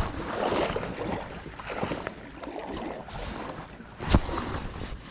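Rushing river water with wind buffeting the microphone, and one sharp knock about four seconds in.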